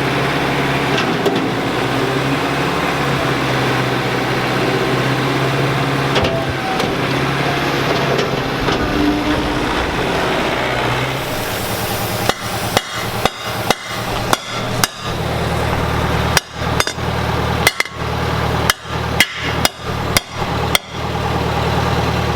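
A steady running noise with a low hum, then from about halfway a series of about a dozen hard, irregularly spaced hammer blows.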